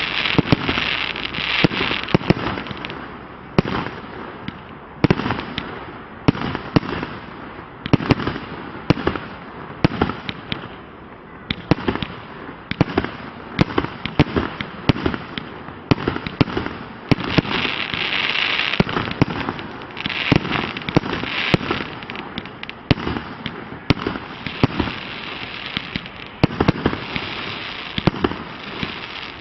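A 100-shot fan-fired fireworks cake of 30 mm shells firing: a rapid, uneven string of launch shots and star bursts, about two a second. Between the shots there is a hissing haze that swells at times.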